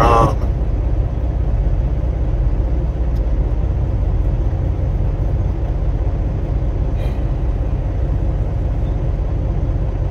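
Steady low rumble of an idling diesel truck engine, heard from inside a semi truck's cab.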